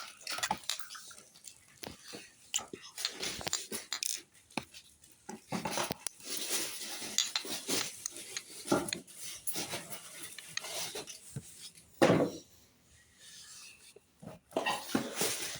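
Objects and packaging being handled at close range, with repeated rustling, tapping and clinking and a brief louder sound about twelve seconds in.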